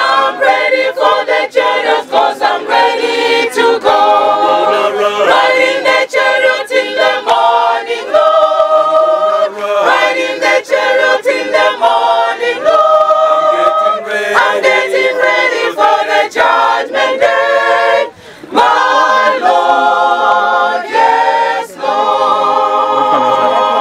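Mixed choir of men's and women's voices singing unaccompanied in harmony, with a brief break about eighteen seconds in.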